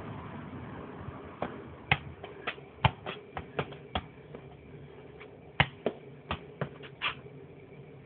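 A football being juggled: a run of sharp, irregular taps as the ball meets the player's foot and head, a pause near the middle, then a few more taps.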